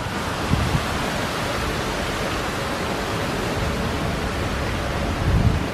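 Steady rushing noise, even and without voices, with a couple of brief low thumps about half a second in and near the end.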